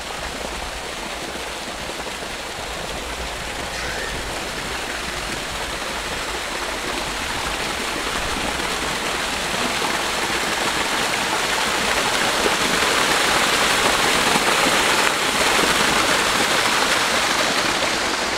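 Small natural waterfall pouring over rocks and splashing into a shallow pool, a steady rush of falling water that grows gradually louder, easing slightly near the end.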